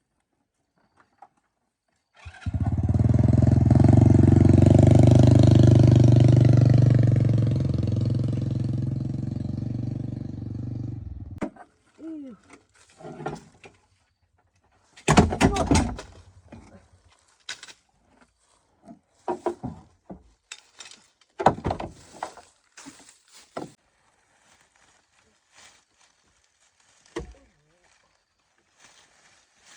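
An engine starts suddenly, runs steadily for about nine seconds and then cuts off. Scattered short knocks and clatters follow.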